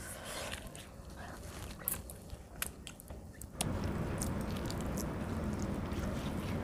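Close-up mouth sounds of chewing soft rice, with scattered wet clicks and smacks. About three and a half seconds in, a louder, continuous squishing starts as fingers mash and gather soft, starchy rice (phenabhat) on a banana leaf.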